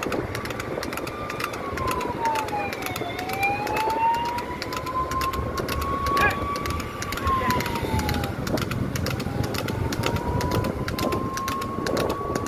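A siren wailing, its pitch sliding slowly up and down in long sweeps, over steady wind and road rumble with frequent crackling buffets on the microphone.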